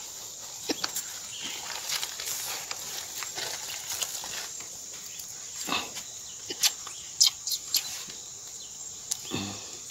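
Scattered small clicks and snaps as dry chihuahuaco splinters are handled and lit with a lighter, over a steady high-pitched insect drone.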